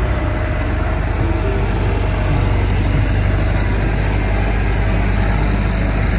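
A full-size farm tractor's diesel engine running steadily.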